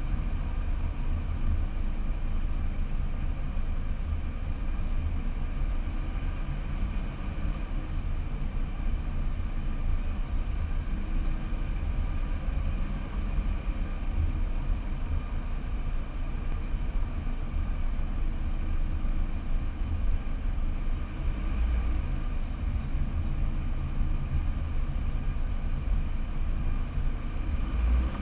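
Car driving slowly: a steady low engine and road rumble with no sharp events, picked up by a car-mounted GoPro.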